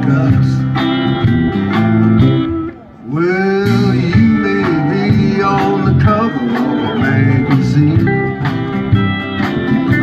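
Live country band playing an instrumental passage: pedal steel guitar, banjo, electric and acoustic guitars, bass and drums. The music drops away briefly about three seconds in, then comes back with notes that bend upward.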